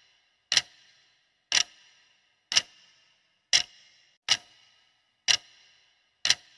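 Countdown-timer clock-tick sound effect: a sharp tick about once a second, seven in all, each with a short ringing tail, counting down the seconds left to answer.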